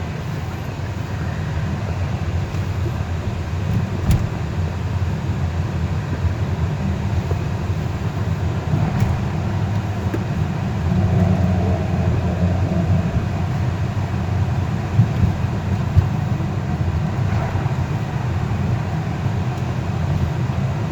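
Car road noise heard from inside the cabin while driving across an old drawbridge: a steady low rumble of tyres and engine, with a few sharp knocks spread through it.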